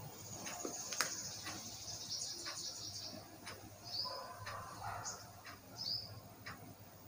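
Faint background bird chirps, including two short calls about four and six seconds in, over a light hiss. There are scattered light clicks, the sharpest about a second in.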